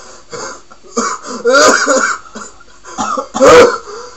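A person coughing and clearing their throat in two loud bouts, about a second in and near the end, with the nose irritated by a homemade paper sneezing stick.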